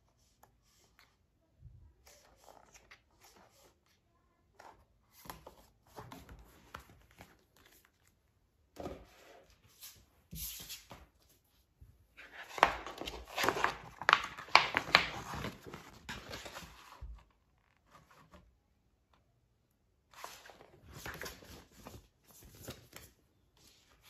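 A K-pop album photobook and its packaging being handled on a table: pages turning and paper rustling in scattered short bursts, with a louder, busier run of rustling and small knocks about halfway through.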